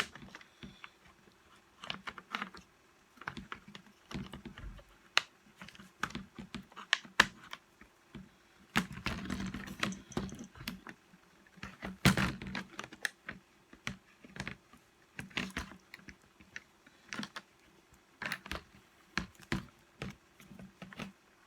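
Irregular small clicks and knocks of hard plastic and metal parts being handled, with brief scraping, as carbon brushes are fitted into a reciprocating saw's brush holders.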